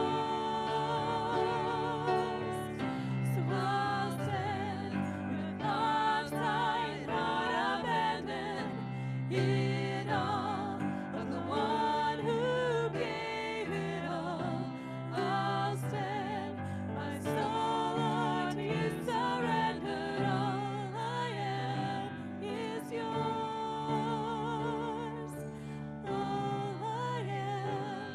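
Two women singing a worship song into microphones, their held notes wavering with vibrato, over sustained electric keyboard chords.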